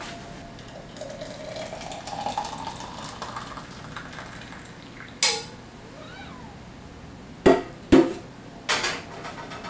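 Kitchen clatter of a porcelain-enamel tea kettle and a cup being handled to make tea: one sharp knock about five seconds in, then three more clinks and knocks near the end. A faint wavering whistle tone from the kettle lingers in the first few seconds.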